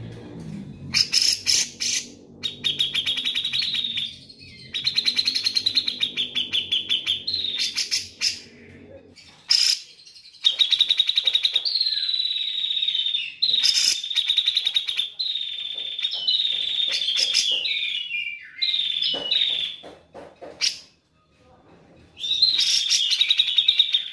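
Grey-cheeked bulbul (cucak jenggot) singing: a series of rapid, high, trilled phrases, each a second or a few seconds long, broken by short pauses and a few sharp single notes.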